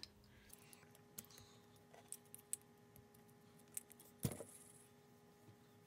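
Faint clicks and taps of small LEGO plastic pieces being handled as yellow bushes are pushed onto the cross axle through a LEGO wheel, with one sharper click about four seconds in.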